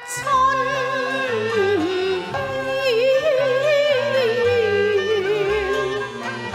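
Cantonese opera music: one long, heavily ornamented melodic line that slides and wavers in pitch, over steady instrumental accompaniment.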